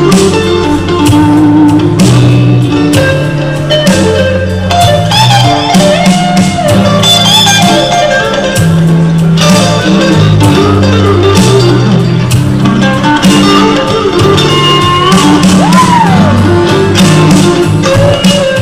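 Live blues-rock band playing loudly: electric guitar takes the lead over bass and drums, with a guitar string bend about 16 seconds in.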